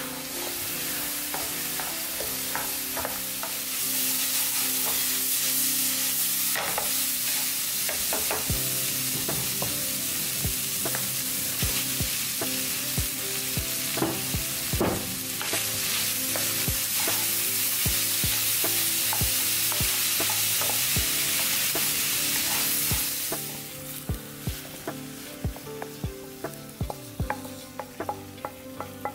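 Ground pork, diced zucchini and tomato sizzling in a metal frying pan while a wooden spatula stirs and knocks against the pan. The sizzle grows louder about four seconds in and drops away after about twenty-three seconds, leaving quick taps and scrapes of the spatula.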